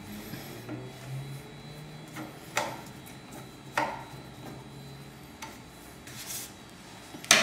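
Parts of a coffee grinder's doser being handled during reassembly: a few separate sharp clicks and taps, the loudest right at the end, over a faint low hum that stops about two-thirds of the way through.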